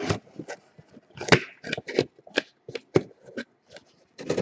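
Trading cards and their plastic cases being handled and set down on a table: a run of irregular clicks and knocks, two of them louder, at about one and a half and three seconds in.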